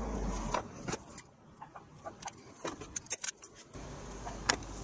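Scattered light clicks and taps of hand tools working on a keyboard circuit board, with a single snip of side cutters trimming a soldered wire end near the end.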